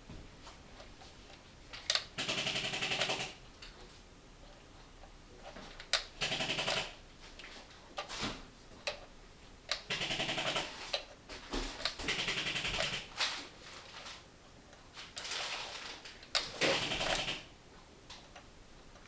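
A P90 electric airsoft gun firing full-auto in six short bursts of about a second each, its gearbox rattling rapidly. A few sharp clicks fall between the bursts.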